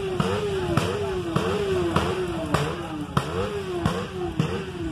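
A vehicle engine being revved in quick repeated throttle blips, about three every two seconds: each time the pitch jumps up with a sharp crack and then sinks back before the next blip.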